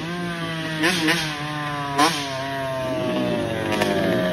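Suzuki RM60 60cc two-stroke dirt bike engine revving as the bike rides up, with two quick throttle blips about one and two seconds in, then the pitch falling steadily as the rider eases off.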